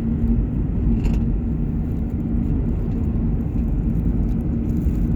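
Steady low rumble of a car driving, heard from inside the cabin: engine and tyre noise with a constant hum.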